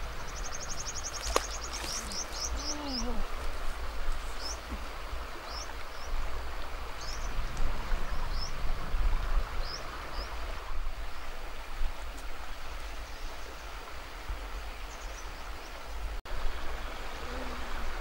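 River water flowing steadily, with a small bird trilling quickly in the first few seconds, then chirping about once a second until about halfway through.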